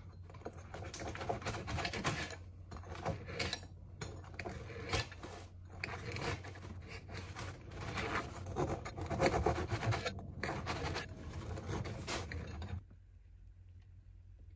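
Bread knife sawing through a crusty round loaf: a long run of back-and-forth sawing strokes with the crackle of hard crust, stopping suddenly near the end.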